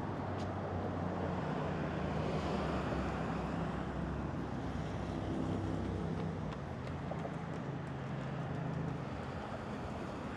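City street traffic: a motor vehicle's engine hums low and steady over the general noise of passing traffic, easing off near the end.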